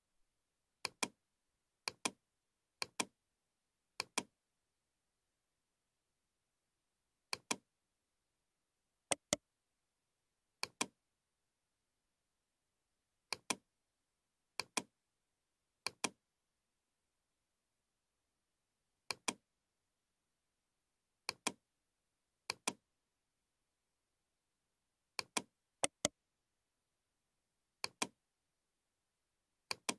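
Computer mouse button clicks: a single click or a quick double-click every one to three seconds.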